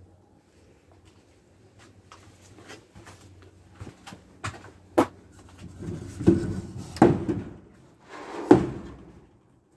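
Wooden knocks and clatter from a hinged, wire-mesh-topped wooden potting bench being handled. Light clicks come first, then a sharp knock about five seconds in, then three heavier thuds with rattle near the end.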